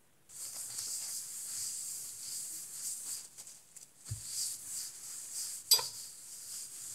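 Soft, hissy rustling from hands handling things at a table, with one sharp click about six seconds in.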